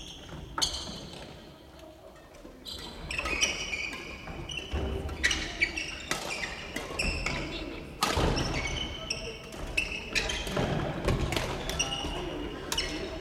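Badminton practice in a large gym: rackets striking shuttlecocks with sharp cracks at irregular intervals, mixed with sneakers squeaking in short high chirps and feet thudding on the wooden court floor.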